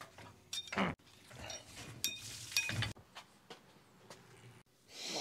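Metal clanks and clinks with a short ring as the handwheel latches of a kiln door are worked and the heavy door is swung open. The sounds come in two bursts, about half a second and two seconds in, with fainter knocks after.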